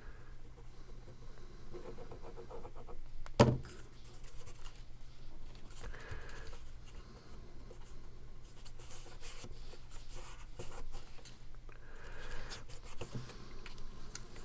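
Paper cardstock being handled and pressed down by hand: faint rubbing and rustling, with one sharp tap about three and a half seconds in.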